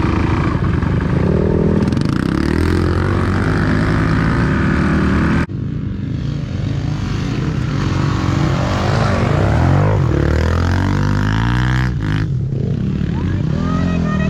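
Four-stroke motocross dirt bike engine revving up and down as the bike is ridden hard, the pitch rising and falling with throttle and gear changes. The sound changes abruptly about five and a half seconds in, as at a cut between shots.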